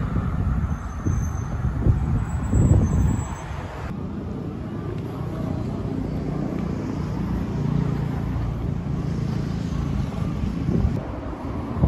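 Outdoor street ambience: a low rumble of road traffic mixed with wind on the microphone, loudest about two to three seconds in, with the background changing abruptly about four seconds in to a steadier, slightly quieter wind-and-traffic hum.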